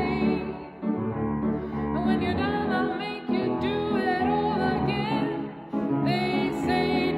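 A woman singing solo over instrumental accompaniment, her voice holding and bending through sustained notes in a large, echoing church hall.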